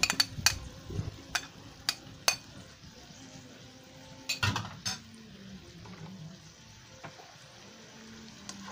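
Coconut milk and vegetables sizzling in a wok, with a few sharp knocks and clinks against the pan in the first couple of seconds and again about four and a half seconds in.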